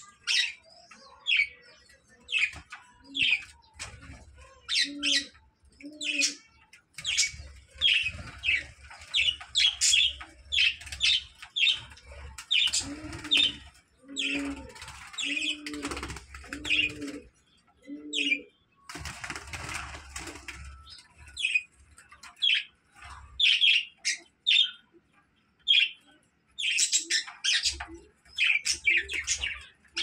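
Pet budgerigars chirping and chattering throughout in quick, short high calls, with a brief flutter of wings about two-thirds of the way in. A lower note that rises and falls repeats about once a second in the background, in two short stretches.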